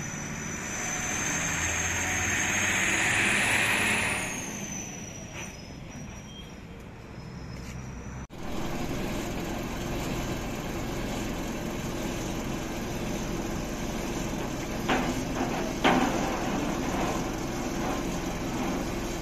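Road traffic: a vehicle passes with a rush and a high whine that swells and falls away about four seconds in. After a sudden break comes a steady engine and road rumble with a low hum, and near the end two sharp knocks about a second apart.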